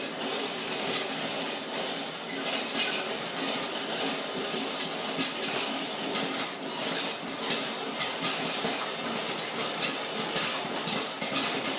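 Popcorn kernels popping hard inside a covered stovetop pot: a dense, irregular run of sharp pops, several a second, over a steady low hum.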